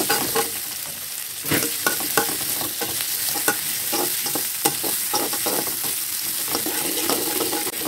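Sliced onions, garlic and chilli sizzling in hot oil in a hammered metal wok, stirred with a metal spatula that scrapes and clicks against the pan again and again. The aromatics are being sautéed until fragrant.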